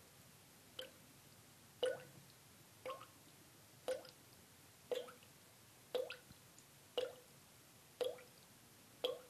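Water dripping from a tap into a washbasin, one drop about every second, each a short plink with a little ringing tone.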